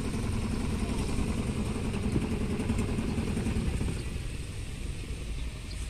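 Small engine of a wooden outrigger boat running steadily, then throttled back about four seconds in as the boat slows.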